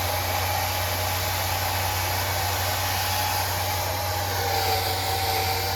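Handheld hair dryer running steadily, blowing over a glued-down lace wig to set it, with a whine that wavers a little in pitch.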